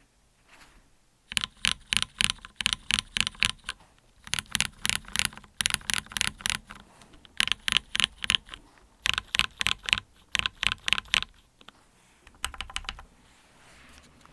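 Keys on a Duck Viper V3 mechanical keyboard with lubed Cherry MX Black Hyperglide switches on an FR4 plate and GMK keycaps, pressed in quick runs of clacks, several a second, with short pauses between runs.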